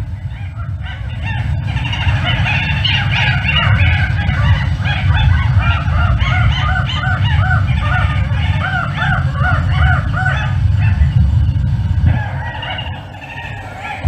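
A chorus of birds calling at once, with a run of repeated short arched calls, about three a second, through the middle, fading near the end.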